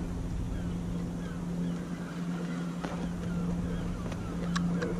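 A boat engine running steadily in the harbour, a constant low drone, over wind rumble on the microphone. A few sharp clicks come about four and a half seconds in.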